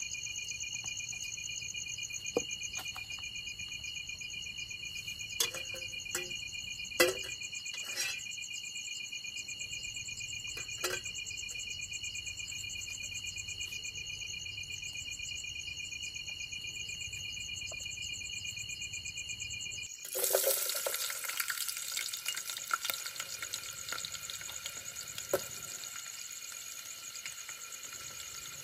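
A steady chorus of insects trilling in high pulsing tones, broken by a few clicks and knocks of cookware. About 20 s in, a sudden loud sizzle of food going into hot oil starts and slowly dies down.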